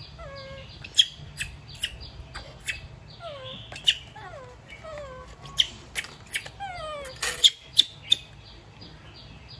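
Baby macaque giving short high calls that fall in pitch, about six times, between sharp clicks and crackles from a banana-leaf wrapper being handled; the loudest clicks come in a quick run near the end.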